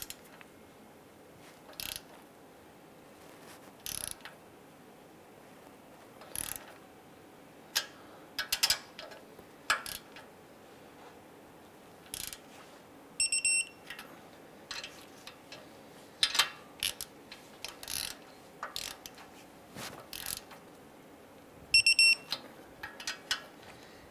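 Digital torque wrench ratcheting bolts with short strokes of sharp clicks, and beeping briefly twice, about halfway through and near the end, as a bolt reaches the set 40 ft-lb torque.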